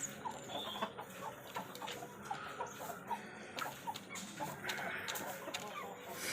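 Chicken clucking while feeding: short, soft clucks repeated a few times a second, with scattered sharp taps.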